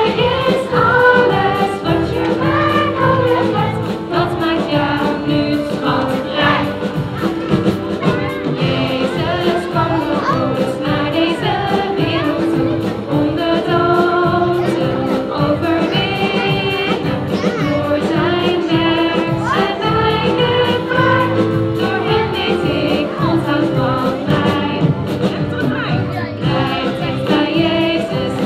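Live band of drums, electric guitar and keyboard playing an upbeat Dutch children's worship song with a steady beat, with two women's voices leading and a children's choir singing along.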